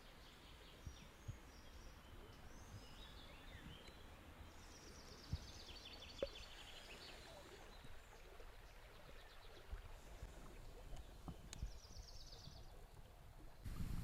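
Faint birdsong, a few chirps and quick trills, over quiet forest background noise, with a few soft clicks.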